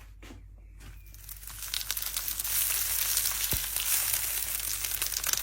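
Packaging being handled, crinkling and rustling with a dense crackle that starts about a second and a half in and keeps going.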